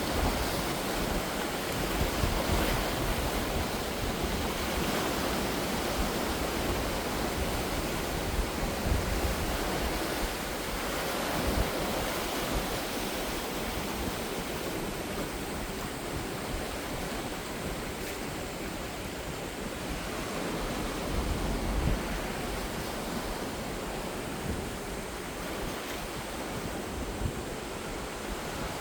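Ocean surf: waves breaking and washing on the shore in a continuous rush, swelling and easing every few seconds.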